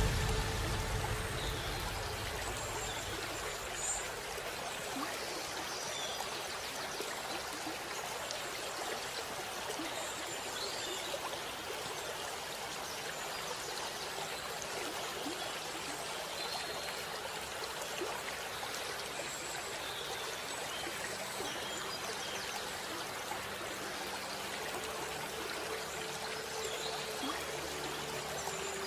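Steady sound of running water, like a small stream, with a few faint high chirps now and then. Music fades out in the first couple of seconds.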